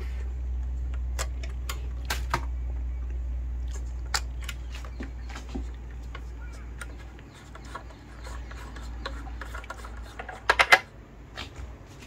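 Handling noise: scattered clicks and knocks of a plastic camera body and its cables being handled, with a louder cluster of clatter about ten and a half seconds in, over a low rumble that fades out about halfway through.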